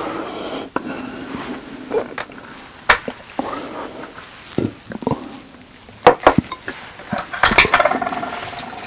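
Close-miked eating sounds of boneless chicken and rice: utensils clink against the dish several times at irregular intervals, with a louder burst of clatter about seven seconds in, over soft chewing.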